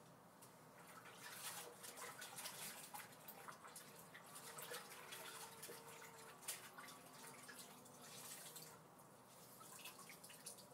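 Faint water splashing and dripping as a cleaning cloth is dipped and wrung out in water, in irregular bursts.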